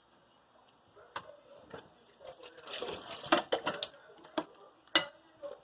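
Kitchen dish and utensils being handled: a short noisy stretch about three seconds in, then several sharp clinks and knocks.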